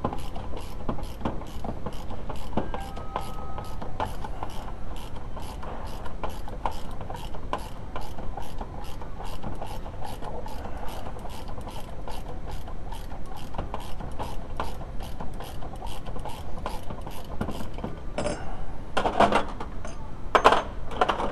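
Hand ratchet wrench clicking as it turns the forcing screw of a bearing race puller, pulling the inner bearing race off a front wheel hub. Several louder metal clanks near the end.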